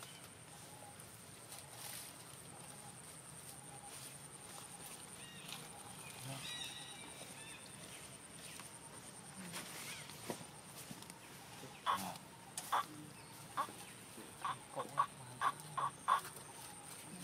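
A run of about eight short clucking animal calls, bunched in the last few seconds, over a steady high-pitched hum.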